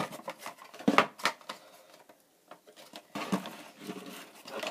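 A cardboard fingerboard box and small objects being handled on a wooden desk: a few sharp knocks and scrapes with soft rustling between them. The loudest knocks come at the start and about a second in, with a quiet stretch in the middle.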